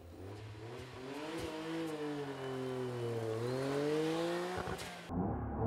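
Spoon-tuned Honda S660's turbocharged three-cylinder engine running as the car drives, its pitch sinking and then climbing again partway through. It cuts off sharply about five seconds in.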